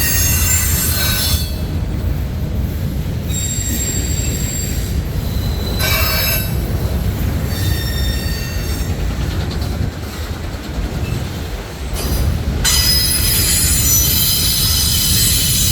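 CSX freight train cars rolling past with a steady low rumble, their wheels squealing in high-pitched screeches that come and go, loudest over the last few seconds.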